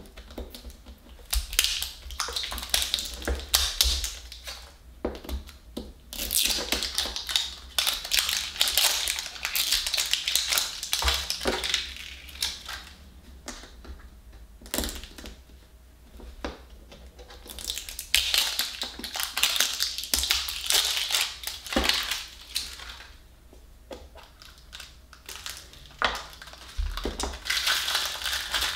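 Crinkly wrapper layers being peeled and crumpled by hand off a small L.O.L. Surprise ball, crackling in several spells with quieter pauses between them and a few sharp clicks.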